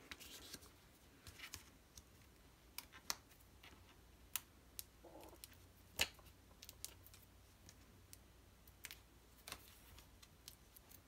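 Quiet paper handling: cardstock being peeled, flipped and pressed down by hand, with scattered light clicks and taps, the loudest about six seconds in.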